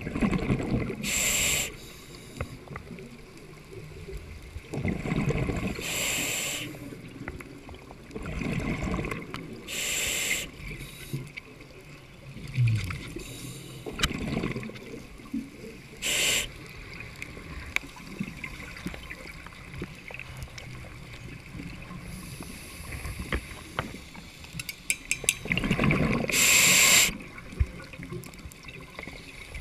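Scuba diver breathing underwater through a regulator: a rush of exhaled bubbles about five times, with lower rumbling between the breaths.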